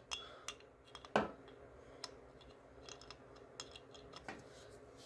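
A few faint, irregular metal clicks and taps as a stuck part on a lawnmower is worked at to turn it, the loudest knock about a second in.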